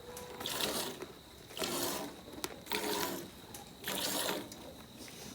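Cow being milked: a milking stroke repeating about once a second.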